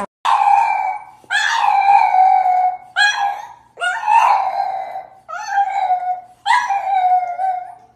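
A dog howling: six long howls in a row, each about a second long, with short breaths between, each holding its pitch or sagging slightly at the end.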